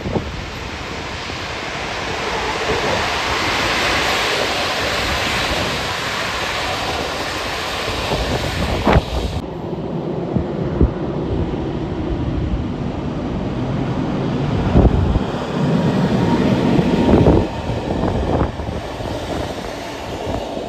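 Passenger train rolling past on the rails, a steady rumble and hiss of wheels and coaches with a few short knocks, mixed with wind buffeting the microphone.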